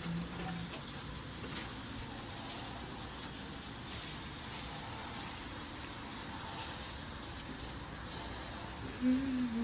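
Steady hissing noise, with a short pitched whine-like sound about nine seconds in.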